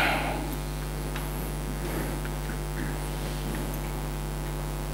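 Steady electrical mains hum through the sound system, with a short breathy rush right at the start and a few faint ticks.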